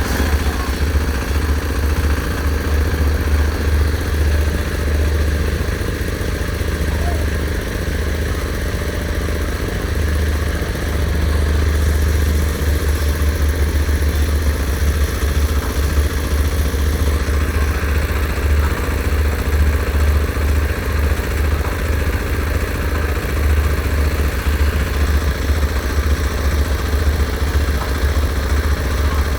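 Engine of heavy construction machinery running steadily with a low, even rumble.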